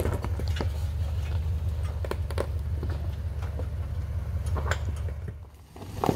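Toyota Tundra pickup crawling over rocks: its engine runs low and steady while stones crunch and click under the tyres. The sound cuts off about five seconds in.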